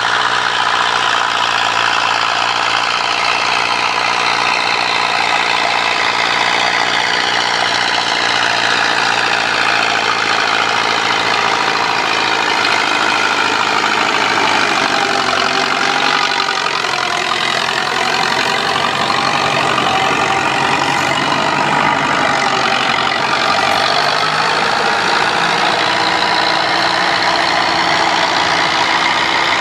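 Massey Ferguson 185 tractor's four-cylinder diesel engine running steadily under load while pulling a rotary tiller through dry ground. Its note dips and rises again around the middle.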